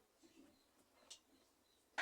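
Near silence: room tone with a few faint light clicks, the clearest about a second in.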